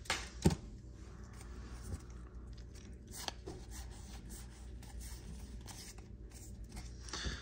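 Pokémon booster-pack foil wrapper crinkling and trading cards rustling as a pack is handled. A couple of sharp crackles come near the start and another about three seconds in, with faint rustling between.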